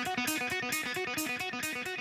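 Intro music: a guitar playing a quick, repeating picked riff over a steady beat.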